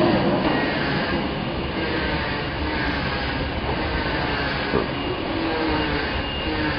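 Steady, loud running noise of workshop machinery, a continuous mechanical din with faint high tones drifting over it.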